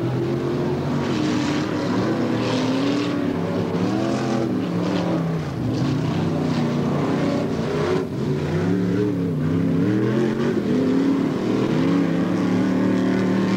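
Off-road race cars with open-header V8 engines racing, the engines revving up and falling off again and again, at times more than one at once.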